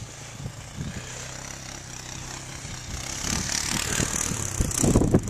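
An engine running steadily with a low hum. It grows louder from about three seconds in, with a few heavy thumps near the end.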